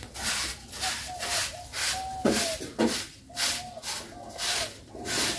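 Jharu broom sweeping the ground in quick, even strokes, about two a second, each a brushy swish.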